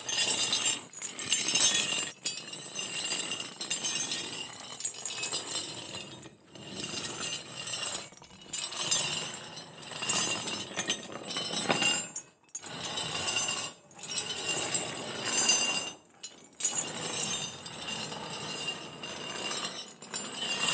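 Metal chains clinking and rattling in irregular clusters with a ringing metallic edge, broken by short pauses every few seconds.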